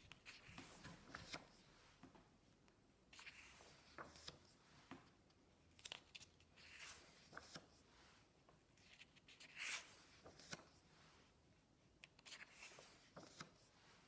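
Faint rustling and swishing of paper as the pages of a softcover colouring book are turned and smoothed flat by hand, in several short brushes.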